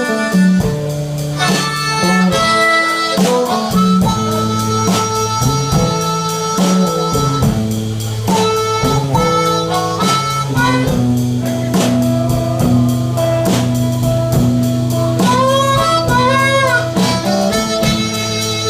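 Blues band playing an instrumental intro: blues harmonica leading over guitar and a drum kit keeping a steady beat, with a run of bending notes about fifteen seconds in.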